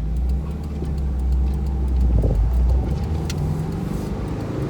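2002 Subaru WRX's turbocharged flat-four engine running under way, heard from inside the cabin as a steady low rumble of engine and road noise that swells briefly about two seconds in.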